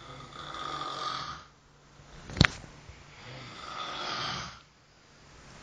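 A person snoring: two long, rasping snores a few seconds apart, with a third beginning near the end. A single sharp click a little before halfway is the loudest sound.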